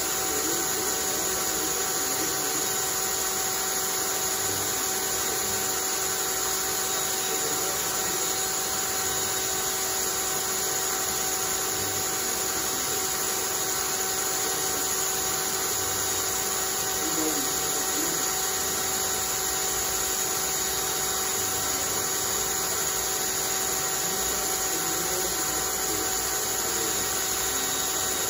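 Cordless drill running continuously at a constant speed, spinning a homemade wooden centrifuge rotor: a steady motor whine over a whirring hiss.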